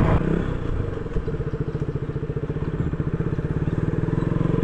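Motorcycle engine running at low, steady revs while the bike rides slowly over a rough gravel road, heard from the rider's seat as an even, rapid engine beat that eases slightly midway and picks up again near the end.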